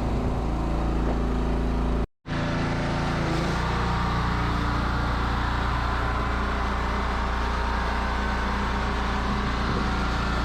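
An engine running steadily with a constant low hum. It breaks off for a split second about two seconds in, then carries on.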